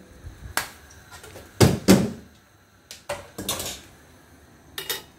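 A run of short knocks and clatters from a metal saucepan and kitchen things being picked up and set down. The two loudest knocks come close together about two seconds in.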